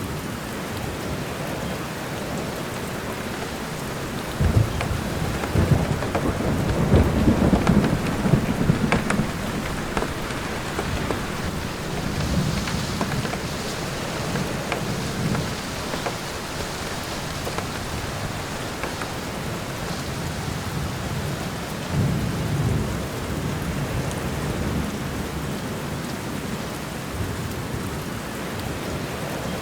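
Steady rain falling in a forest during a thunderstorm. Thunder rumbles in loudly about four seconds in for several seconds, and a shorter, fainter roll of thunder comes about twenty-two seconds in.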